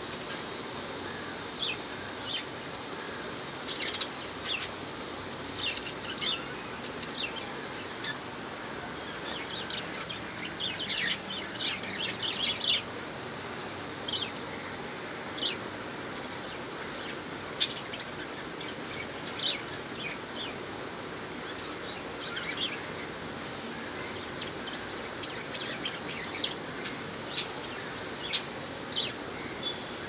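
Budgerigars chirping in short, scattered calls, with a busier run of chirps a little over a third of the way in.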